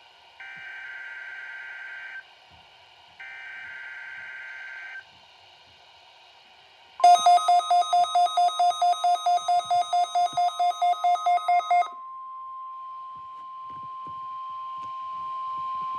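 NOAA Weather Radio SAME header: two bursts of warbling data tones about two seconds each. Then a harsh electronic alarm beeps rapidly, about five times a second, for about five seconds. About twelve seconds in, the steady 1050 Hz warning alarm tone starts, sent as a test of the weather radio alert system.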